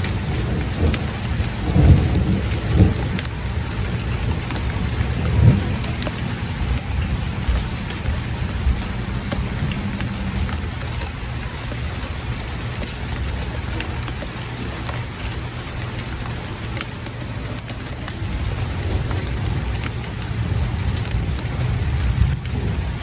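Steady rain falling, with scattered sharp drop taps. A few low rumbles swell up around two, three and five and a half seconds in.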